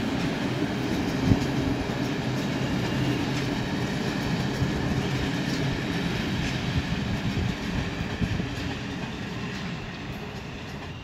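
Passenger train coaches rolling past at close range: a steady rumble of wheels on rail with scattered clicks over the rail joints and one sharp knock about a second in. The sound fades over the last couple of seconds as the train moves away.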